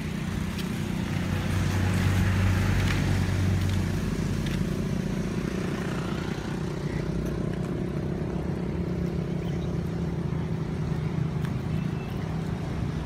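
Steady low hum of an engine running, a little louder for a couple of seconds near the start.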